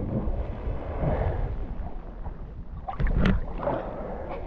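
Lake water sloshing and lapping around a waterproof action camera held at the surface, with a low rumble of water and wind on its microphone; a louder slosh about three seconds in.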